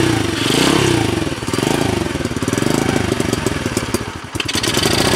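Small four-stroke engine of a petrol kids' pit bike running and being blipped, its pitch rising and falling about once a second; the revs sag briefly a little past four seconds in, then pick up again.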